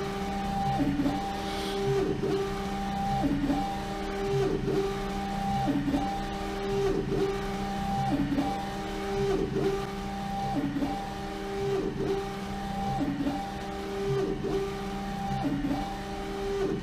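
LogoJet UVx60XL UV printer with rotary jig, its print-head carriage sweeping back and forth over the turning bottle on the final varnish pass. It gives a steady motor whine in a pattern that repeats about every 1.2 seconds.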